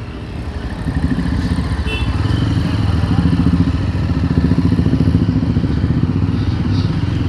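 Yezdi Roadster's single-cylinder engine and exhaust running smooth under way, growing louder about a second in and then holding steady.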